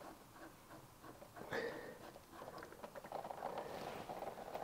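Light metallic clicks of a spanner working the bolt on a front brake caliper as it is undone. From about three seconds in, brake fluid runs out of the opened joint and patters into a metal drain tin below.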